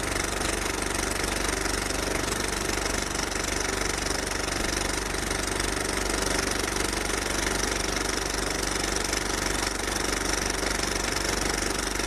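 A fire engine's diesel engine idling steadily while the truck stands parked.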